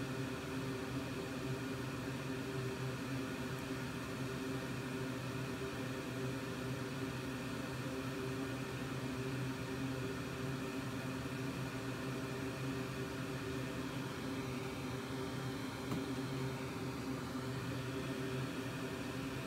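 Steady whirring hum of a running electric fan, even in level, with a low droning tone under it.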